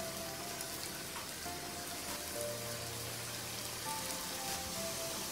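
Samosas deep-frying on low heat in a pan of oil: a steady bubbling sizzle with fine crackles. Soft background music plays underneath.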